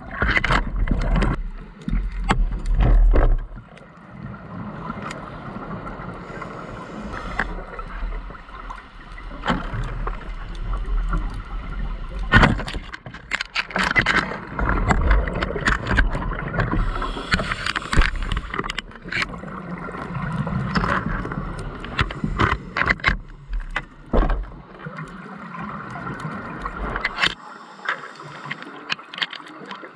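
Underwater sound on a scuba dive: the diver's regulator breathing and exhaled bubbles gurgling in uneven swells, with many scattered sharp clicks and knocks.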